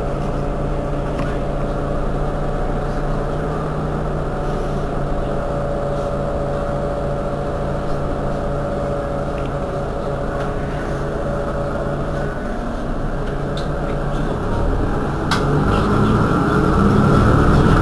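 Mercedes-Benz Citaro G articulated bus engine idling with a steady hum while the bus stands still. It grows louder and deeper over the last few seconds.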